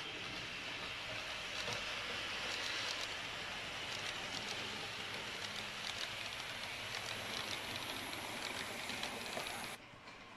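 H0-scale model electric multiple-unit train running along the track, a steady whirring rolling noise with faint scattered clicks from the wheels on the rails. It cuts off sharply near the end.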